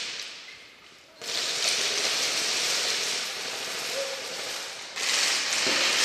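Airsoft guns firing in rapid, sustained strings, a dense clatter that starts about a second in, dips briefly just before five seconds and swells again.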